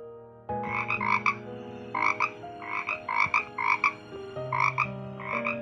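A frog croaking: a run of short, quick double croaks, about two a second, beginning about half a second in.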